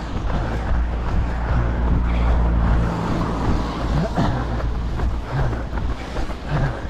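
Cars passing close by on a road, with a low rumble of wind on the microphone in the first few seconds.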